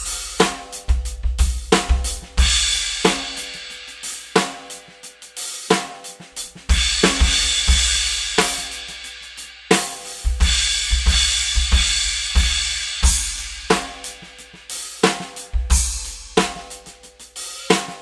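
Acoustic drum kit played in a steady groove: kick, snare and hi-hats under B20 bronze HQ Cymbals, with the efx splash cymbals featured. Long bright cymbal washes ring out about two, seven and ten seconds in.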